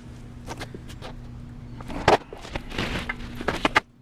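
Clinks and knocks of loose bolts and metal hand tools being handled, the loudest about two seconds in and a quick cluster near the end, over a steady low hum.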